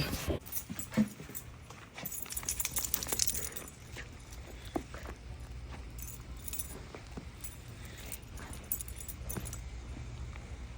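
Light clicks and jingling clinks of small metal objects being handled, busiest about two to three and a half seconds in, over a steady low hum.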